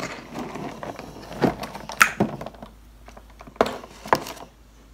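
Clear plastic takeout clamshell container being handled and set down by the wooden serving board: several sharp plastic clicks and knocks, with faint rustling between them.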